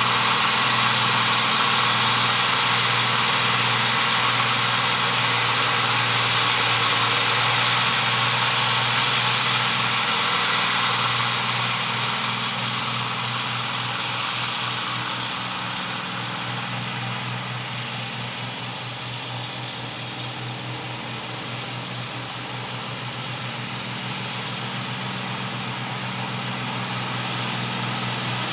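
Allis-Chalmers Gleaner N6 combine harvester running steadily while harvesting corn: a continuous engine drone with a broad mechanical whir over it. It grows quieter partway through and picks up a little near the end.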